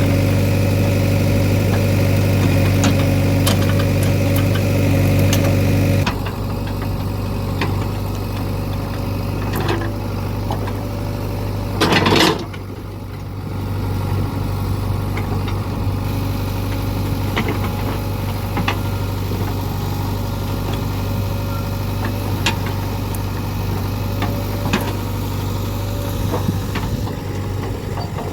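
Diesel engine of a JCB 3DX backhoe loader running steadily, with scattered small knocks and clicks. It gets quieter about six seconds in, and there is a short loud noise about twelve seconds in.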